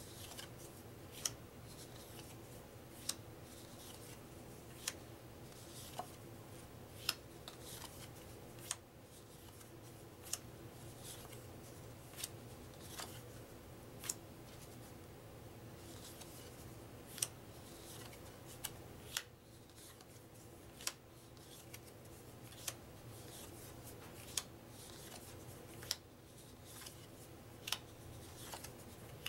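Stiff card-stock game cards being leafed off a stack one at a time, a sharp papery snap every second or two, over a faint steady hum.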